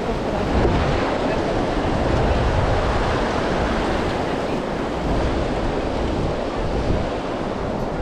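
Sea waves washing onto a beach, a steady surf noise, with wind buffeting the microphone and adding a low rumble.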